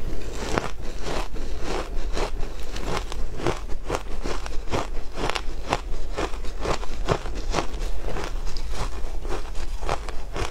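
Shaved ice crunching as it is chewed, heard close up: a steady run of crisp crunches, about two to three a second.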